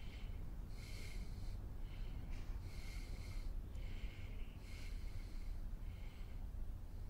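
A man breathing in short, even breaths through the nose, about one a second, over a low steady room hum.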